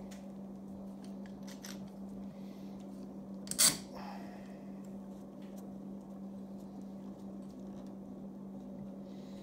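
Metal bar clamp being handled and tightened against a wooden chair seat: a few light clicks and one sharp clank about three and a half seconds in. A steady low hum runs underneath.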